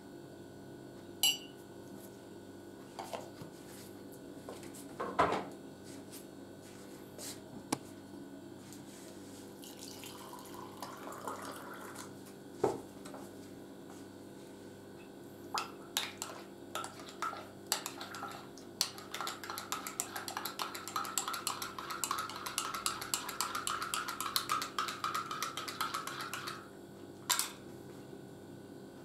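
Metal teaspoon clinking and scraping rapidly against the inside of a ceramic mug as condensed milk is stirred in it, a dense run of clinks lasting several seconds that stops abruptly. Before it come a few separate knocks and clinks of the spoon, tin and mug being handled on the table, and a single knock follows it.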